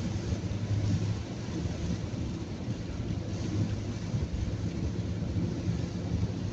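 Steady low rumble of a vehicle travelling on a wet road in the rain, with an even hiss of rain and tyre spray over it.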